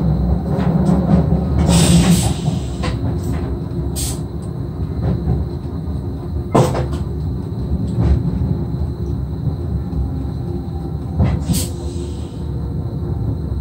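Cab of an SGMm Sprinter electric train on the move: a steady low rumble, with sharp clicks and knocks every second or two and a couple of short bursts of hiss.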